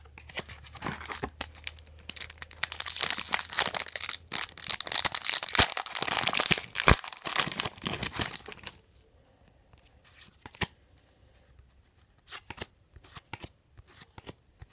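The crinkly wrapper of a 2002 Fleer Triple Crown baseball card pack being crumpled and torn open, crackling for about eight seconds and stopping about nine seconds in. After that come scattered light clicks as the cards are handled.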